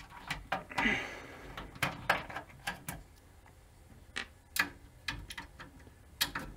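Phillips screwdriver turning tight screws on a PC power supply's mounting in a steel case: a run of irregular metallic clicks and ticks, about eight over a few seconds.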